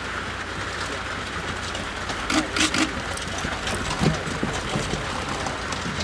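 Steady outdoor background hiss, with a quick run of sharp clicks about two and a half seconds in and a single knock about four seconds in.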